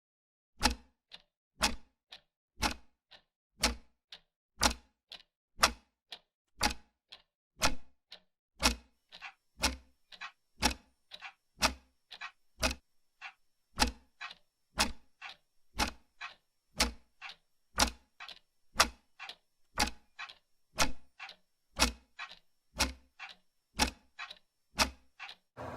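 Clock ticking about twice a second, each loud tick followed by a softer tock, with dead silence between the strokes; this is a ticking-clock sound effect used to mark waiting.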